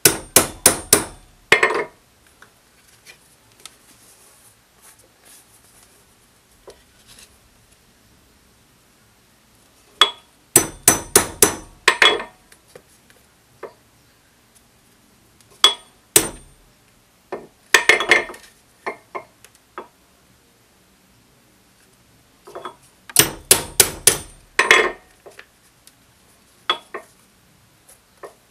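Hand tools knocking on a workbench: several bursts of quick, sharp strikes, five or six in a row, with pauses of several seconds between them.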